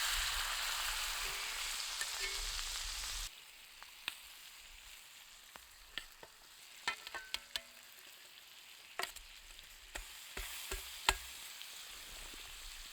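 Pork chops sizzling in a frying pan, a loud steady hiss that drops off suddenly about three seconds in. A much quieter sizzle follows, with scattered pops and crackles of fat spitting.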